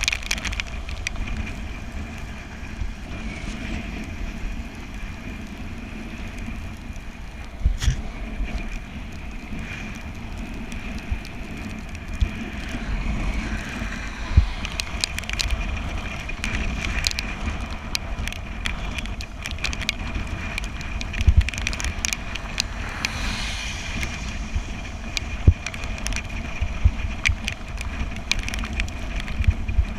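Bicycle riding on a wet road: wind rumbling on the microphone and tyre noise, with a thin steady high whine and scattered knocks and rattles from bumps.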